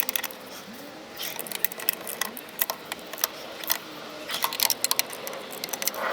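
Socket wrench ratcheting in several quick runs of clicks as the new wheel-hub bolts are tightened.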